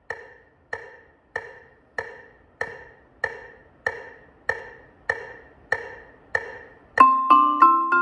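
Metronome ticking at a steady, even pulse of about one and a half clicks a second, counting in the player. About seven seconds in, a Yamaha marimba enters louder with quick, ringing mallet notes.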